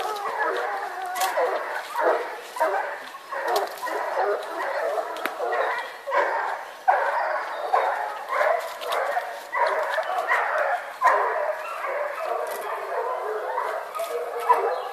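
A pack of hunting dogs baying on wild boar, many voices overlapping without a break, with higher yelps mixed in.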